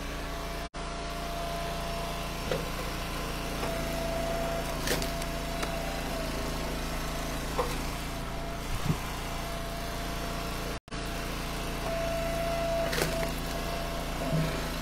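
Eastonmade Ultra gas-engine hydraulic log splitter running steadily as sassafras rounds are split, with a steady tone rising over the engine twice for a couple of seconds each and a few short wooden knocks as rounds are set on the beam and split. The sound cuts out briefly twice.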